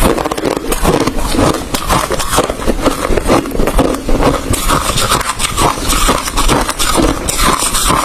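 A person chewing and crunching ice, with dense, rapid crunching throughout.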